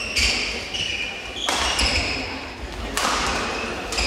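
Shuttlecock struck back and forth by badminton racquets in a doubles rally: three sharp hits about a second and a half apart, each ringing on in the hall's echo.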